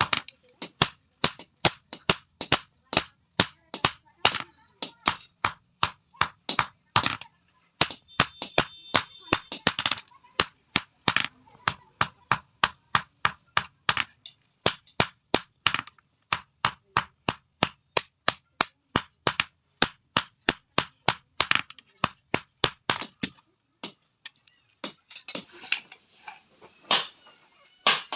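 Blacksmith's hand hammer striking metal on an anvil in a steady rhythm, about three blows a second, each with a bright metallic ring. The hammering stops briefly a few times and resumes.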